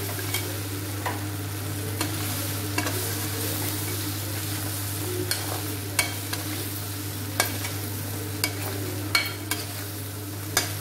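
Metal spatula stirring fried idli pieces in a metal kadai, with irregular sharp scrapes and taps against the pan about once a second over a steady sizzle of hot oil and sauce.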